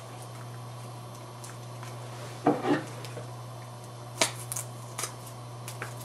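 Hands handling things on a desk: a short rustle about halfway through and a few light clicks and taps near the end, over a steady low hum.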